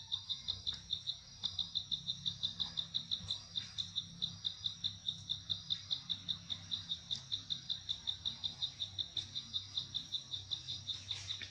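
Insect chirping in a steady, even rhythm of about five short high-pitched pulses a second, with a brief break about a second in; it stops near the end.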